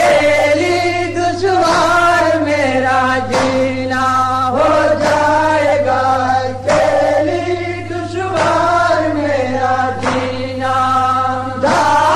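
Voices chanting a nauha, a Shia lamentation elegy, in long, drawn-out melodic phrases over a steady low hum.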